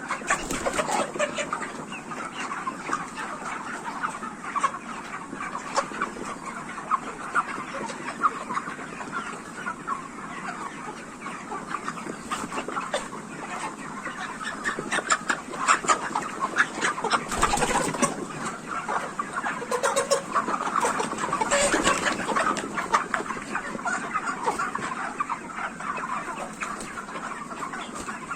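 A large flock of 44-day-old broiler chickens clucking and calling continuously, many birds overlapping, with a few sharp clicks among the calls.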